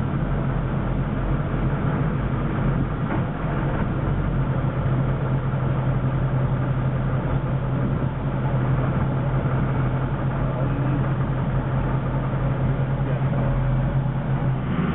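A boat's engine running steadily at a constant speed, giving a strong even low hum over a broad rush of noise.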